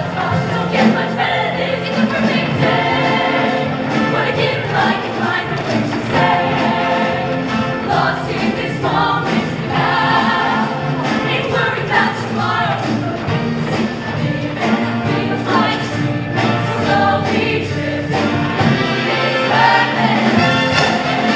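All-female show choir singing in harmony over a live band with a steady beat.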